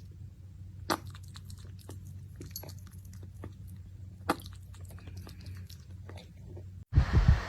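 Chewing: irregular soft crunches and clicks over a low steady hum, with two sharper clicks about a second in and just past four seconds.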